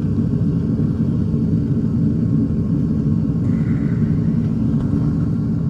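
Gas torch flame burning with a steady, loud roar while heating brass rods to melt them.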